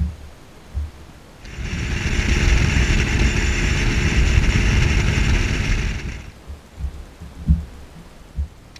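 Bass boat running at speed for about four and a half seconds: the outboard motor and rushing wind on the microphone, starting about a second and a half in and dying away near six seconds. A few dull low knocks come before and after.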